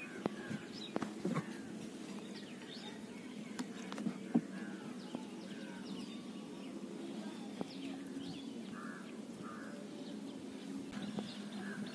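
Birds chirping in the background over a steady low hum, with a few light knocks and clicks from the cast net and fish being shaken out into the wooden boat.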